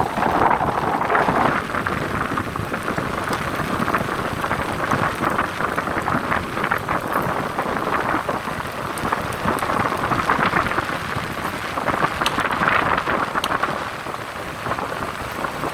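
Steady rain falling, dense patter of drops on a surface, swelling and easing slightly every few seconds.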